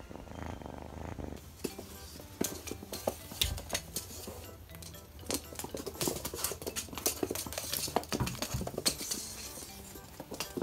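Scottish Fold kitten purring close to the microphone for the first second or so. Then come quick irregular clicks and taps of the kitten's paws and claws scrabbling on a wooden floor as it plays, with soft background music underneath.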